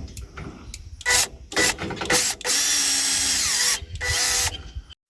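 Power drill driving screws into metal gazebo brackets: two short blips, then a longer run of about a second and a half, then a shorter one near the end.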